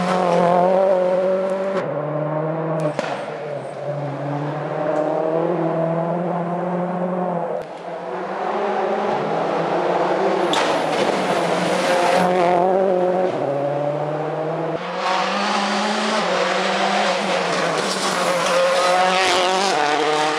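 Turbocharged four-cylinder World Rally Car engines at full throttle as several rally cars pass in turn, the first a Ford Focus RS WRC. The pitch steps with each rapid gear change and is cut off sharply a few times, where one pass ends and the next begins.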